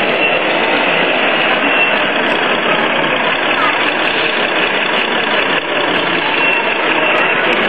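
A scale RC truck's electronic diesel engine sound idling steadily, blended into a continuous din of voices in the hall.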